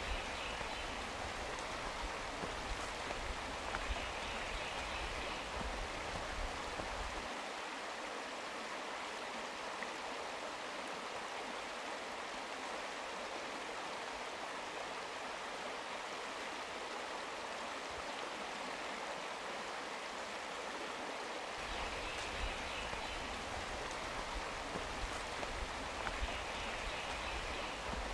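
Steady rushing of a creek flowing beside the trail. A low rumble with light thumps sits under it for the first quarter and the last fifth, and drops out in between.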